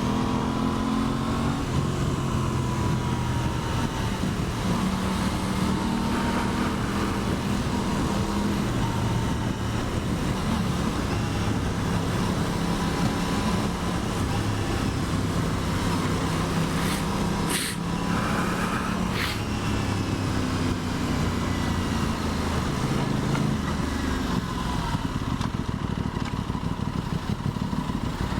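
2023 Aprilia Tuono 660's parallel-twin engine running under way, its pitch rising and falling with changes in throttle, over a steady rush of wind noise. A few short clicks come about two-thirds of the way through.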